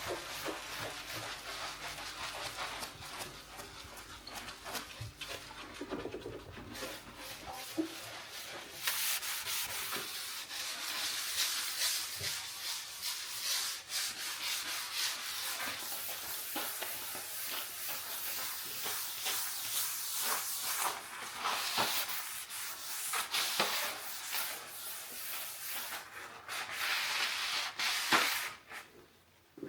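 Rubbing strokes of hand cleaning, a dense run of fast scrubbing or wiping. It is fainter at first, grows louder from about nine seconds in, and stops briefly near the end.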